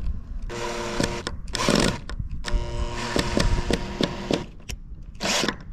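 Makita power drill's motor running in two spells, about a second and then about two seconds, with short bursts of scraping noise between and near the end.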